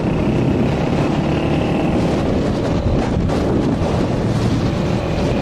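Steady loud rumbling noise, mostly wind buffeting the microphone, with no distinct blasts or impacts.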